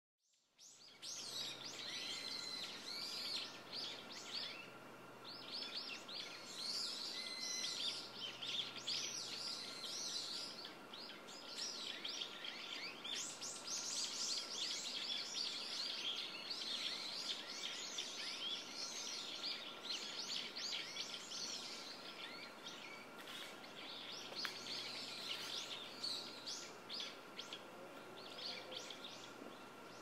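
A chorus of small birds chirping, many short overlapping calls, over a steady background hiss with a faint steady high tone beneath. It fades in during the first second.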